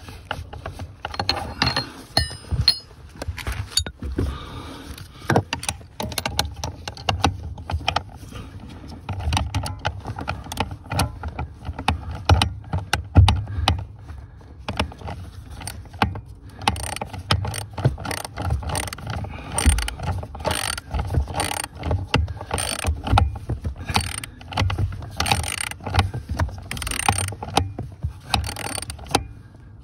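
A ratchet wrench clicking in repeated short strokes, mixed with knocks and rattles of metal and plastic parts, as the clutch pedal assembly is bolted back together. The strokes come regularly, about one a second, through the second half.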